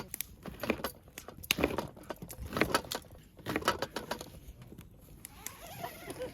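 Irregular light knocks and clinks, several short clusters of them, like cooking gear being handled.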